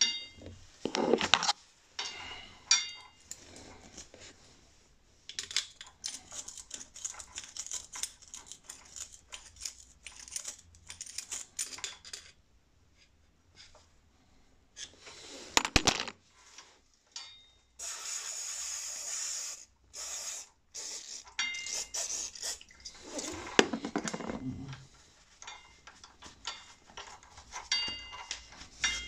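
Hand work on a Suzuki GSX-S1000 front brake caliper: cloth rubbing and wiping over the metal, with many scattered taps and small metallic clinks that ring briefly. A steady hiss lasts about two seconds around two-thirds of the way through.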